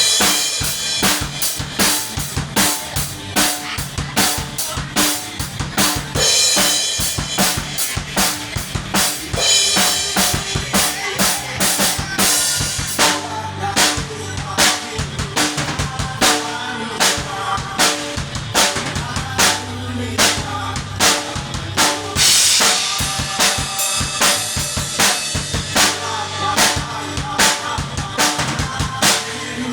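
Live rock band playing an upbeat song, led by a drum kit: steady kick and snare strokes with cymbal crashes over pitched band instruments.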